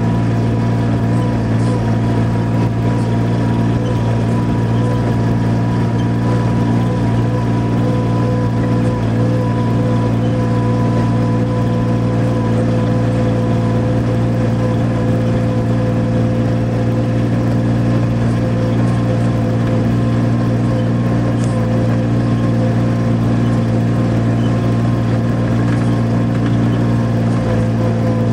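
Engine of a slow-moving vehicle running steadily over rough grass: a constant low drone with a faint steady whine above it.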